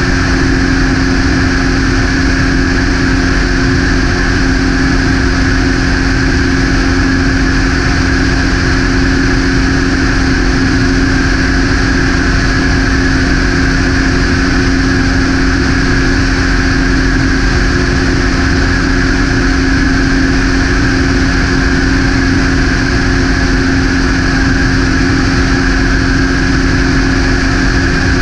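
Propeller aircraft's engine and propeller droning steadily in cruise, a constant loud hum with one strong low tone over rushing noise.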